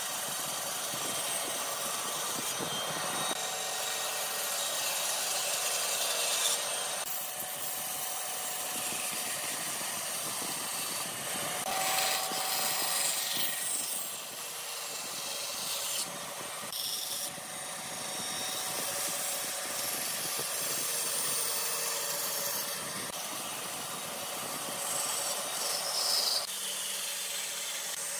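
Bandsaw cutting curves in pine boards: the blade rasps steadily through the wood over the hum of the running saw, and the cutting noise swells and eases several times as pieces are fed through.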